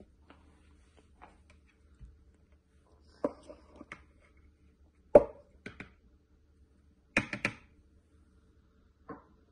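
Plastic food processor bowl and its blade being handled: scattered sharp clacks and knocks as the blade is lifted out of the bowl of pastry crumbs. The loudest knock is about five seconds in, with a quick pair near seven seconds.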